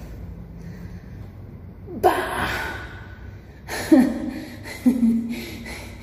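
A woman's breathy wordless exclamations: a loud gasp about two seconds in, then two shorter voiced cries, the first falling in pitch, around four and five seconds in. A steady low hum lies under the first two seconds.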